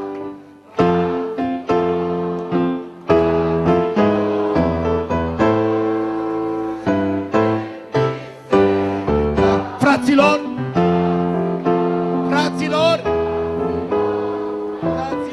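Worship music on a keyboard: held chords that change every second or so. A voice sings briefly about ten seconds in and again a couple of seconds later.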